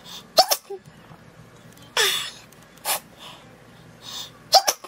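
A woman's short breathy laughs and gasps, four quick bursts with pauses between them.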